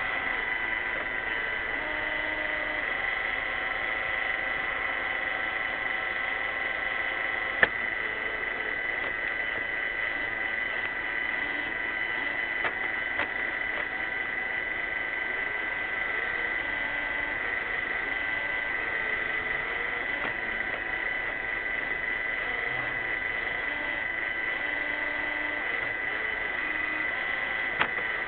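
iRobot Roomba 600-series robot vacuum running with a steady, even whine, with a few sharp clicks; the loudest comes about eight seconds in.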